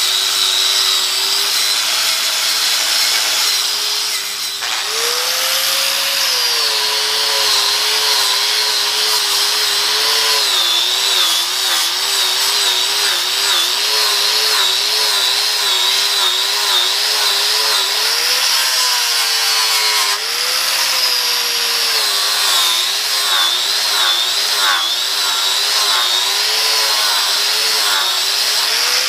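Electric angle grinder running with a Norton Blaze Rapid Strip abrasive wheel, grinding rust off and polishing a cast iron lathe faceplate. The motor's whine wavers continuously in pitch as the wheel works the metal, and rises briefly twice.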